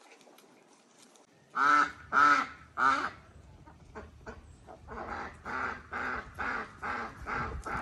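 Ducks quacking: after a brief quiet spell, three loud quacks in quick succession, then a run of quieter quacks at about two a second.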